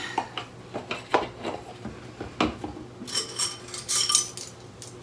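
A metal utensil clinking and scraping against a jar as tahini is stirred. There are scattered separate clicks, then a quick run of ringing clinks about three to four seconds in.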